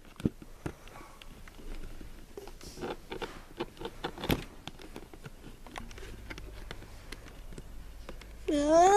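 Fingers prying at the glued flap of a cardboard toy box: small scratches and clicks of card, with one sharper snap about four seconds in. A voice starts near the end.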